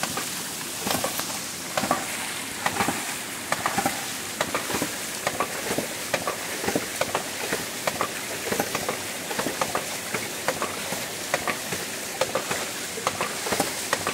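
Hydraulic ram pumps running, with water gushing and splashing out around the waste valves. Frequent short clacks and knocks, irregularly spaced, sound over a steady rush of water.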